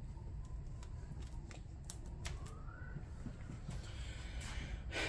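A few light metal clicks as an electric golf cart motor's armature is handled and set down into its field housing, with a short rising squeak about halfway through.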